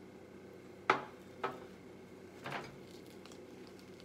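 A sharp knock about a second in, then two softer clinks, as a hot sauce bottle and tableware are set down and handled on a glass tabletop.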